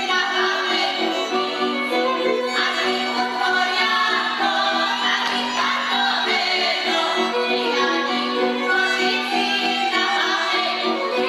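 Slovak folk music for a karička circle dance: women singing over fiddle accompaniment.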